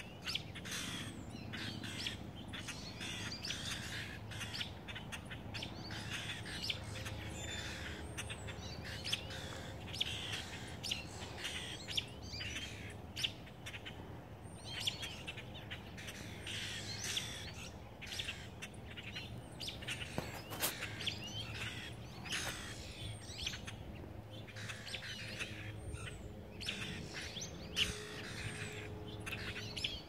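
Small songbirds chirping and calling, many short overlapping chirps, over a low steady hum.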